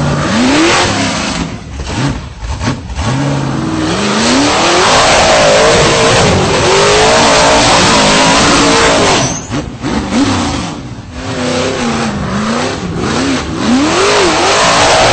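Rock-bouncer buggy's V8 engine revving hard, its pitch rising and falling in repeated surges as it climbs. The sound drops briefly a little past the middle, then the revving picks up again.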